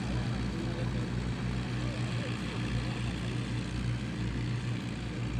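Propeller aircraft piston engines running with a steady, unbroken low drone.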